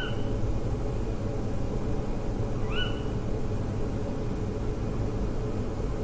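Forest ambience with a steady low rumble, over which a bird gives a short call twice, about three seconds apart. Each call is a quick rising note that levels off.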